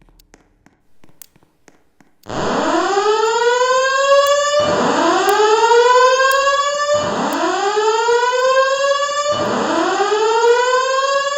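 Voice-evacuation fire alarm system sounding its whoop evacuation tone. About two seconds in, a loud electronic sweep starts, rising quickly in pitch and levelling off, and repeats every couple of seconds, four sweeps in a row.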